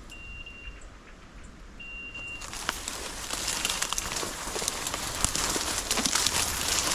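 Dry undergrowth crackling and snapping, a dense rustle of leaves and twigs that sets in about two and a half seconds in and grows louder. Before it come two short, steady, high tones.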